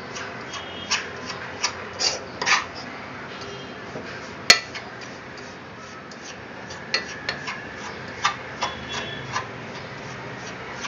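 Spoon scraping and stirring a crumbly mixture of roasted wheat flour and ghee residue in a pan: irregular scraping strokes, with one sharp clink about four and a half seconds in.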